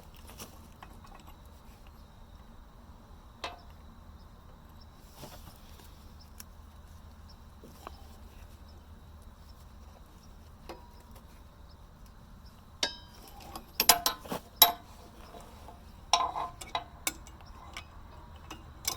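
Steel tools and parts clinking and knocking while the dozer's idler and track are worked on: scattered single taps, then a quick run of sharp metallic clinks about two-thirds through and a few more soon after, over a faint steady low hum.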